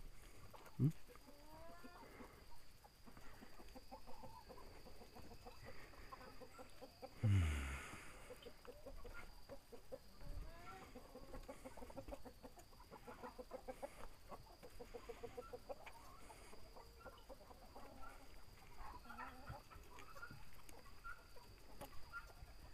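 Chickens clucking, with runs of quick repeated clucks. A loud thump about seven seconds in and a smaller knock near the start.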